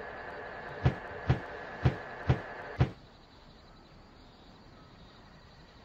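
Online video slot's reels spinning with a faint steady whir, then five short thuds about half a second apart as the five reels stop one after another.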